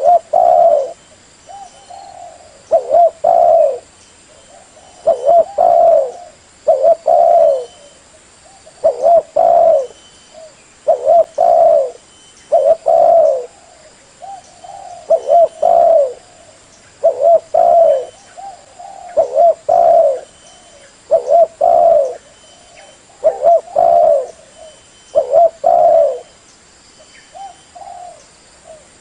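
Spotted dove cooing: short phrases of two or three low coo notes, repeated about every two seconds.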